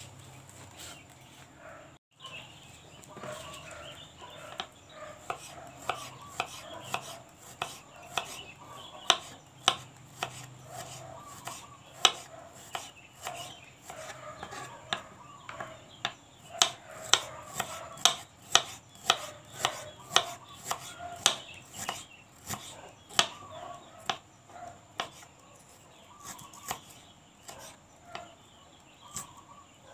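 Knife chopping kangkung (water spinach) stems, a long run of sharp, irregular chops at about one to two a second, with animal calls in the background.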